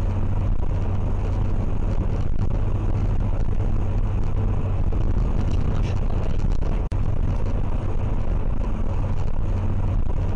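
Steady in-cabin road and engine noise of a car driving at highway speed, picked up by a dashcam microphone: a low hum under tyre roar. It cuts out for an instant about seven seconds in.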